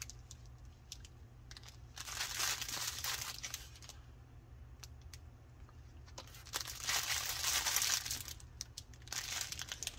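Plastic packaging crinkling as it is handled, in three bouts with small clicks between them, over a low steady hum.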